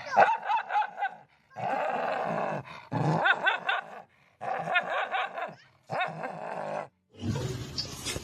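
A pet animal giving drawn-out, wavering vocal calls, yowling or growling, in several separate stretches with short silences between them.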